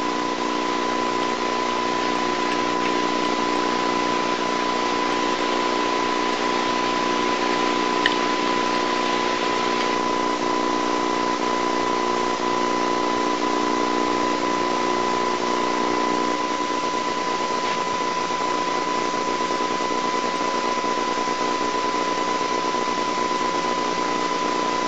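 Steady hiss with a constant high whine and a low hum underneath, unchanging throughout: the background noise of an old videotape recording, with no other sound standing out.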